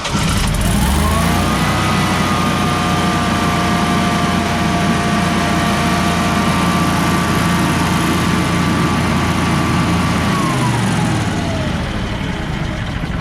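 Generac Guardian 16 kW standby generator's engine, just started, coming up to speed about half a second in and running steadily with a whine, as it sounds in normal running. Near the end its pitch falls as it slows.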